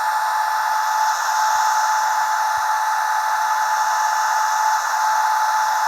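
Recorded hair-dryer sound from a white-noise relief app, played from a phone: a steady blowing hiss with a steady whine through it, thin and lacking any low end.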